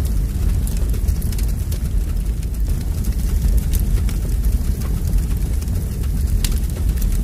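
Fire sound effect: a steady low rumble of burning flames with scattered sharp crackles.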